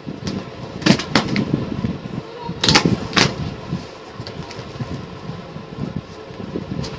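Cardboard box being opened by hand: packing tape ripped and cardboard flaps pulled apart, with short sharp rips twice about a second in and twice around three seconds in, over a steady rustle and scraping of cardboard and foam packing sheet.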